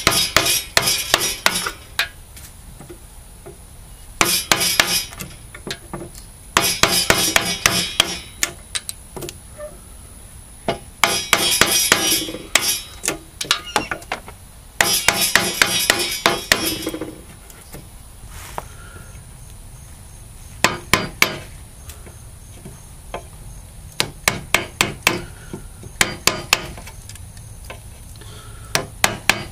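Wooden mallet striking a chisel to split out the waste blocks between saw cuts in an ash spoon blank held in a vise. Quick runs of taps, several a second, come in bursts of one to two seconds with pauses between; they are shorter and more spaced out near the end.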